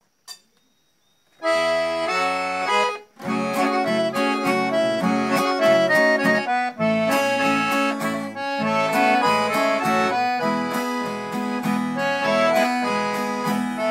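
Piano accordion playing a melodic intro over acoustic guitar accompaniment, starting about a second and a half in, with a brief break just before the third second.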